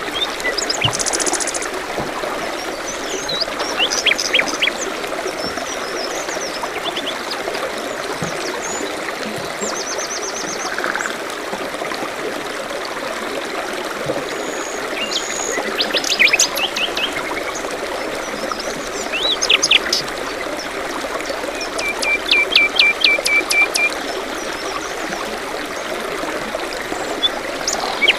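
Running water trickles steadily, like a small stream, while songbirds call at intervals over it with short chirps and quick trills. A longer run of rapidly repeated notes comes about three-quarters of the way through.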